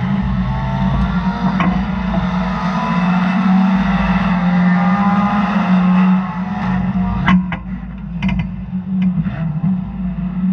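Race car engine idling steadily with the car at a standstill, with a few sharp knocks and clicks about seven to nine seconds in.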